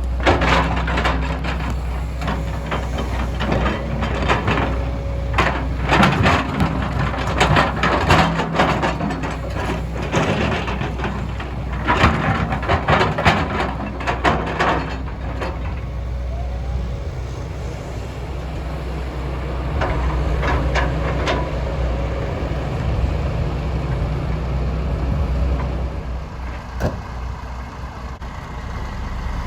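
MST M220LC excavator's diesel engine running steadily while stone clatters and knocks into a dump truck bed, dense for about the first half and only occasional knocks later.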